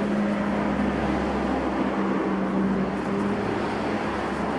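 Steady low background drone with a hum, without clear breaks.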